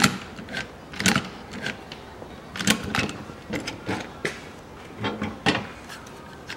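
A series of sharp, irregular metallic clicks and clacks, about ten in all, from hand work on a Toyota Harrier's fuel filler door and its hinge.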